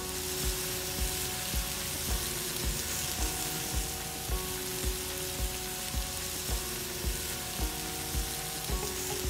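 Melted butter sizzling in a frying pan as brown sugar is stirred into it with a silicone spatula, the first stage of a caramel sauce. Background music with a soft steady beat about twice a second plays throughout.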